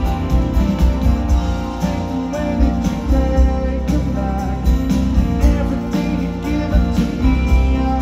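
A live rock band playing a song through a concert PA: strummed acoustic guitar, electric guitar, bass and drums keeping a steady beat, heard from within the audience.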